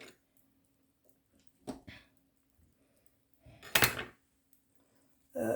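Kitchen handling sounds: a couple of light knocks, then a short louder scrape or clatter of about half a second a little under four seconds in.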